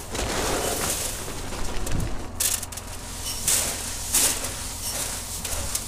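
John Deere 6920 tractor engine idling steadily, with irregular bursts of hissy noise over it.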